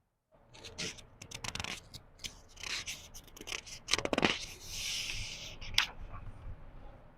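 Paper pages of a book being turned slowly: crackling and rustling paper, with a louder crackle about four seconds in and a soft swish of the page sliding over just after.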